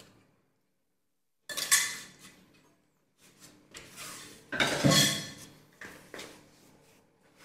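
Porcelain bowls and a metal spoon clinking and knocking on a metal serving tray, in several separate strikes with short ringing, the loudest about five seconds in.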